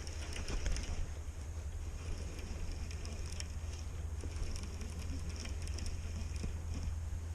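Steady low rumble of wind buffeting the microphone outdoors, with faint scattered ticks and rustles over it.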